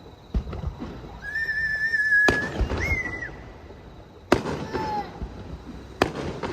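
Aerial fireworks shells bursting overhead with sharp booms about every two seconds. A high, drawn-out wavering tone sounds between the first two bursts.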